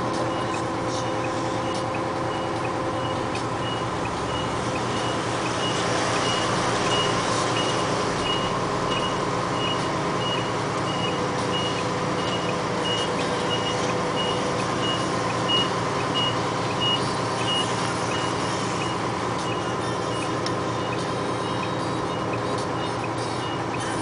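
A construction vehicle's reversing alarm beeping about twice a second, fading out about three-quarters of the way through, over the steady running of a heavy vehicle's engine heard from inside the cab.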